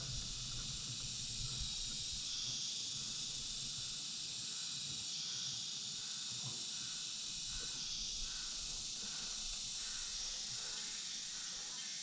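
Steady chorus of forest insects, shrill and high, swelling and easing every few seconds, with a faint note repeating about twice a second.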